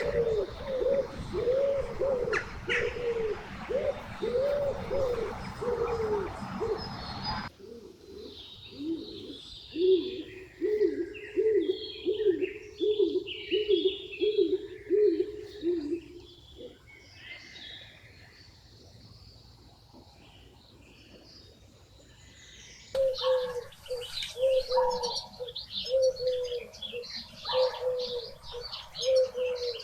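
Birds calling: a low cooing note repeated in long, even series, with smaller birds chirping higher above. The background changes abruptly twice, and the cooing stops for several seconds in the middle while the chirping goes on.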